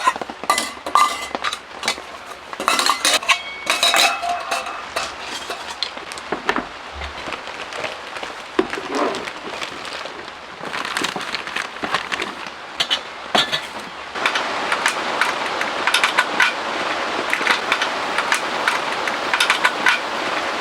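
Metal and glass camp dishes clinking and knocking as they are handled. About two-thirds of the way in, heavy rain on the tent grows louder and steady, with many small drop ticks.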